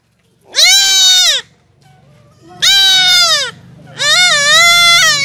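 Young goat kid bleating three times, each a loud cry about a second long, the last one wavering in pitch: distress cries while it is held down and castrated.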